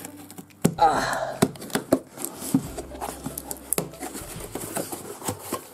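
A cardboard parcel being cut open with a utility knife and its flaps pulled open: scraping and rustling cardboard with several sharp clicks.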